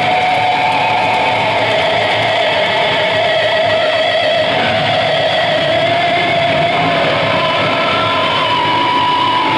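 Live metal band playing at full volume: heavily distorted electric guitars sustaining long, slowly wavering high tones over a dense, unbroken wash of noise.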